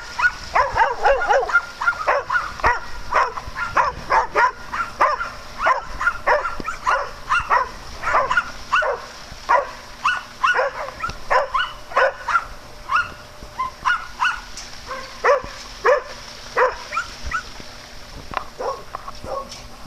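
Repeated dog barking: short, sharp, fairly high-pitched barks about two or three a second, growing sparser over the last few seconds.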